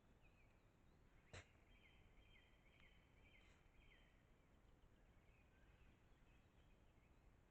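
Faint birdsong: short high chirping phrases repeating, with one sharp click about a second and a half in.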